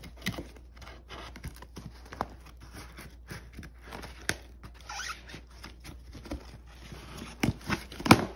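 Scissor blades pushed along the packing tape on a large cardboard box, slitting the tape and scraping the cardboard in uneven strokes. Short clicks run through it, with a few louder sharp knocks near the end.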